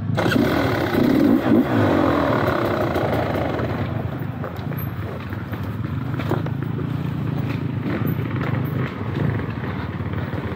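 Dirt bike engine being ridden, its pitch rising and falling with throttle in the first two seconds, then running steadier, with scattered clicks and knocks.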